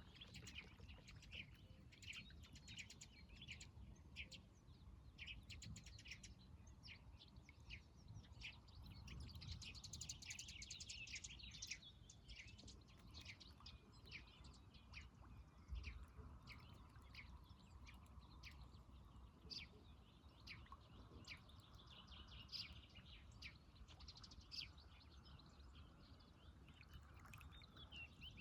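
Faint birdsong: many short chirps and calls from several small birds, scattered through the whole stretch over a low steady rumble.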